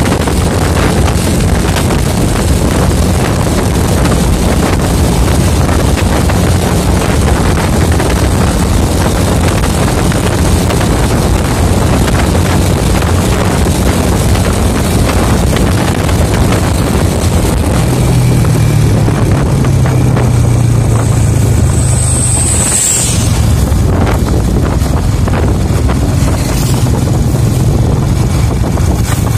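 Wind rushing over the microphone of a moving vehicle, over a steady engine hum that rises in pitch and holds a little over halfway through. A brief high squeal and a low thump come about two-thirds of the way in.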